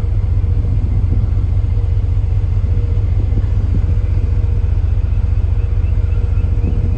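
Steady, loud low rumble of wind buffeting the microphone on the open deck of a moving cruise ship.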